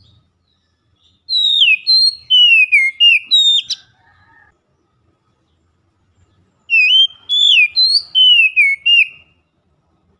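Oriental magpie-robin singing loudly in two phrases a few seconds apart, each a quick run of clear whistled notes that slide downward.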